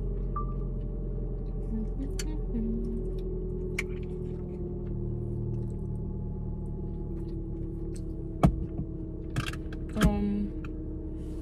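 A metal spoon clinking sharply against a jar of oatmeal a few times near the end, over a steady low hum inside a car.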